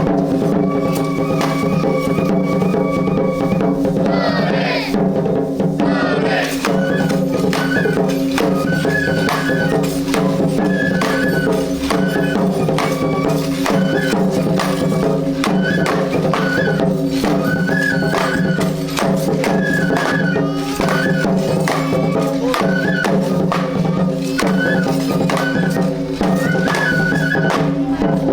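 Traditional Japanese festival music: a flute melody with a short repeating figure over quick drum and percussion strokes and a steady sustained lower layer.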